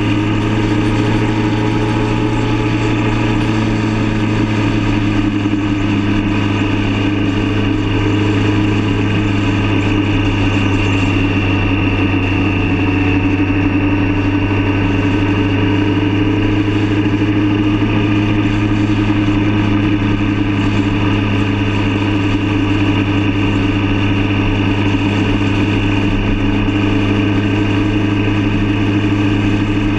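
Motorcycle engine running steadily at cruising speed, a constant drone with wind and road noise rushing past.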